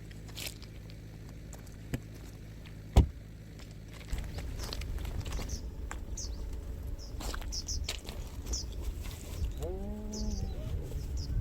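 Outdoor ambience with small birds giving short high chirps and a low cooing call about ten seconds in. A sharp click comes about three seconds in, and a low rumbling noise starts about four seconds in and continues.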